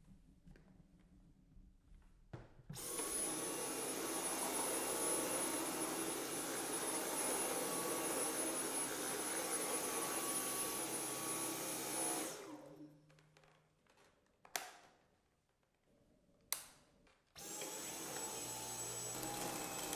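Dyson cordless stick vacuum running steadily with a thin high whine for about nine seconds, then winding down. Two sharp clicks follow, and near the end the vacuum starts up again.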